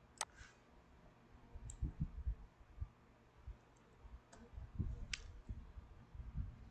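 Computer mouse clicks: a few sharp, scattered clicks, the loudest near the start and about five seconds in. Soft low thumps fall between them.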